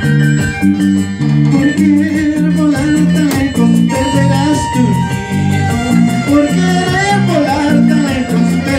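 Live folk music on a large wooden harp, plucking a steady alternating bass pattern, with strummed string accompaniment. A violin melody enters about four seconds in with a long held note, then wavering phrases.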